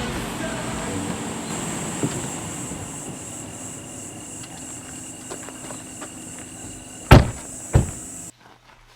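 Background sound slowly fading away, then two loud thumps about two-thirds of a second apart near the end, followed by a sudden drop in sound.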